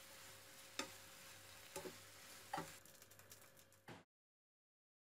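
Diced mushrooms sizzling faintly in a frying pan as a slotted spatula stirs them, with a few light knocks of the spatula against the pan about once a second; the sound cuts off to dead silence near the end.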